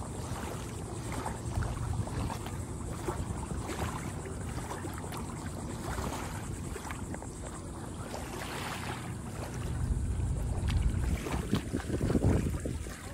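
Wind buffeting the microphone as an uneven low rumble, gusting harder in the last few seconds.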